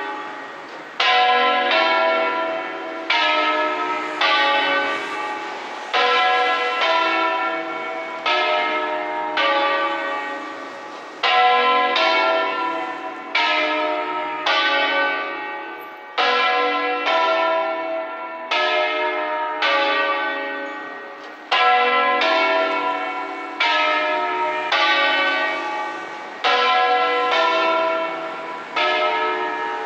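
Church tower bells ringing a peal. Several bells of different pitch strike in turn, about once a second, and each rings on into the next.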